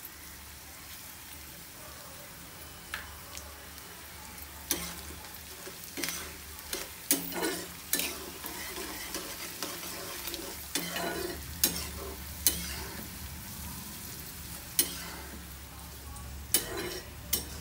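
Tempering of dals, chillies and mustard seeds frying in hot oil in a kadai with a steady sizzle. From about five seconds in, a metal spatula stirs the pan and knocks and scrapes against it about a dozen times.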